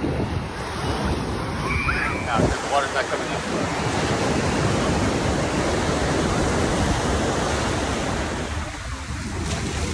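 Ocean surf breaking and washing up the shore in a steady rush, with wind buffeting the microphone. Brief high-pitched voices cry out about two to three seconds in.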